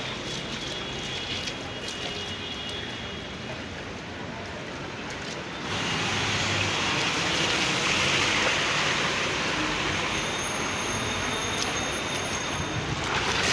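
Cars driving through a flooded road, their tyres sending up water in a steady rushing hiss that grows clearly louder about six seconds in and swells again near the end.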